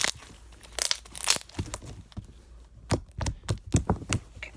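Slime being poked and squished by hand, giving an irregular string of sharp crackling pops as air bubbles burst in it.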